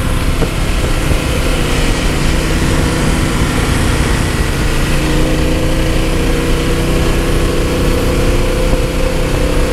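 Harley-Davidson Fat Boy's V-twin engine running at a steady cruising pace, with heavy wind and road noise on the handlebar-mounted camera.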